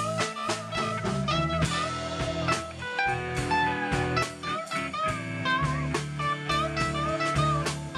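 Live blues band: an electric guitar plays a lead line of single notes with string bends and vibrato over a drum kit and a low bass line.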